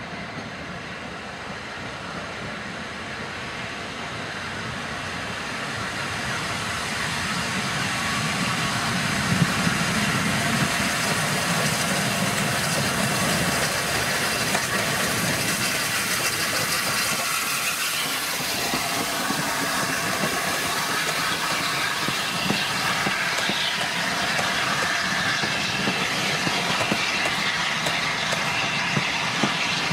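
LNER Peppercorn A1 Pacific steam locomotive 60163 Tornado approaching and passing with a passenger train, growing louder over the first eight seconds or so. Its coaches then roll by with a steady rolling rumble of wheels on rails.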